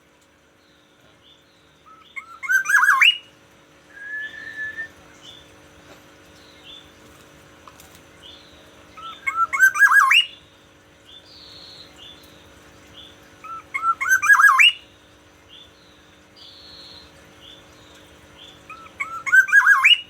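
Black-naped oriole (kepodang emas) calling: a quick run of rising notes, repeated four times about every five seconds, with one drawn-out whistle after the first run.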